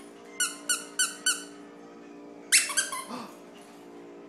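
Squeaky dog toy squeezed four times in quick succession, about three squeaks a second, then once more a little after halfway, with a short lower sound trailing after it.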